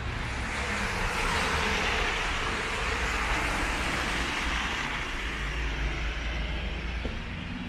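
A road vehicle passing on a town street. Its noise swells over the first second or two, peaks and fades after about five seconds, over a steady low rumble of traffic.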